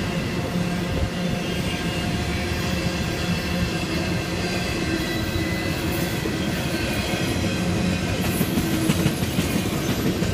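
Norfolk Southern intermodal freight train's flatcars rolling past at close range: a steady rumble of steel wheels on rail, with a few steady high tones over it. A few sharp clacks come about eight to nine seconds in, where it gets slightly louder.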